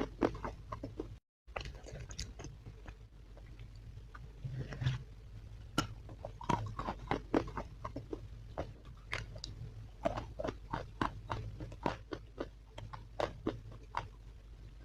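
A person biting into and chewing hard, brittle edible chalk, giving a rapid, irregular run of sharp, dry crunches. A low hum runs underneath, and the sound cuts out briefly about a second in.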